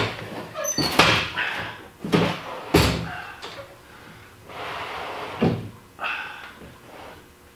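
A plastic gray water tank with its metal strut-channel framework knocking and thumping as it is shoved across a concrete floor and worked up under a travel trailer, with a stretch of scraping about halfway through.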